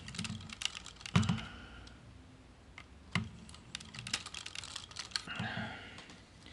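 Hard plastic parts of a Takara MP-36 Megatron transforming figure clicking and knocking as they are worked by hand and pried with a screwdriver to free a stiff joint. The clicks are irregular, with louder knocks about a second in and again about three seconds in.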